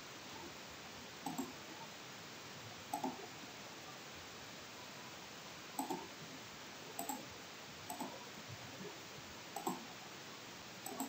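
Computer mouse button clicks, seven short sharp clicks spaced one to three seconds apart, each a quick double tick of press and release, over a faint steady hiss.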